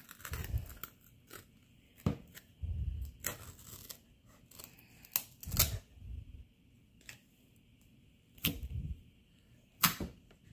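Clear plastic film seal being peeled off a jar of glue slime and handled: scattered crinkles and crackles, with a few dull knocks and taps from the jar.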